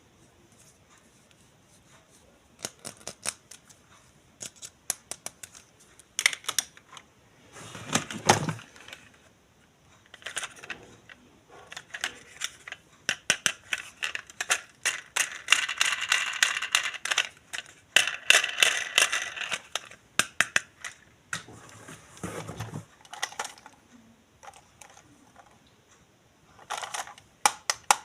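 Unboxing handling sounds from toys and their packaging: many quick clicks and taps, with a denser scratchy stretch in the middle and a few short noisy bursts.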